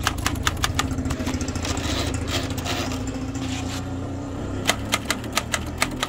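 Antique manual typewriter keys striking in a quick run of sharp clacks during the first second, with a few more clacks near the end. Underneath, a steady engine drone runs through the middle.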